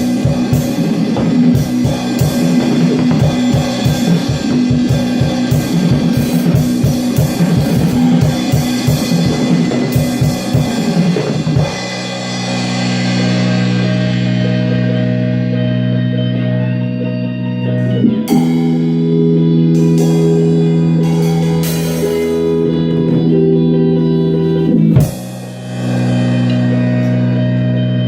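Drum kit played along with a rock recording: a busy, steady beat for about the first twelve seconds. The drums then drop out to occasional hits while sustained electric guitar chords ring on.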